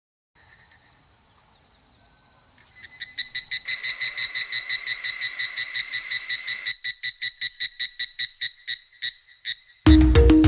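Rhythmic animal chirping, a high call with two steady pitches repeated about four to five times a second. It grows louder about three seconds in and thins out later, and loud music starts just before the end.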